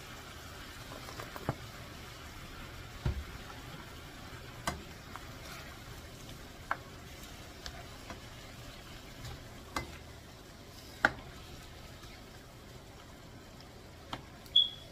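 Squid cooking in sauce in a frying pan with a steady low sizzle, while a cooking utensil stirs and turns it, knocking against the pan in several sharp clicks. A short high squeak sounds near the end.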